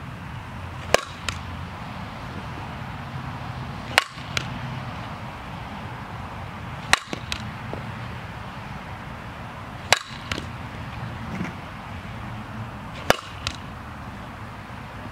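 Softball bat striking the ball in a batting drill: five sharp cracks about three seconds apart, each followed a moment later by a fainter click.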